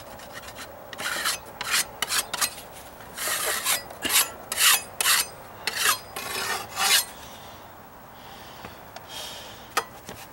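A hand tool scraping down a built-up patch of filler on a deck step edge: a run of short, quick scraping strokes, then fainter, slower scraping near the end.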